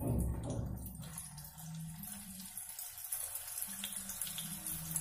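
Poha-and-potato pakoras sizzling in hot oil in an iron kadhai, a steady hiss with small crackles, as a fresh piece of dough is dropped in at the very beginning.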